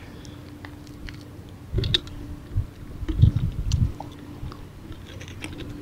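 Handling noises as pliers work a hook out of a large porcupine pufferfish held in a lip-grip tool: scattered small clicks, with crunchy low thumps about two seconds in and a quick cluster of them a little past three seconds.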